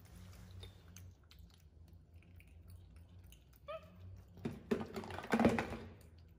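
A pet monkey pawing and rummaging at a nylon drawstring bag and a clear plastic container: rustling and crinkling with small clicks, loudest in a burst about five seconds in, with a short squeak a little before it.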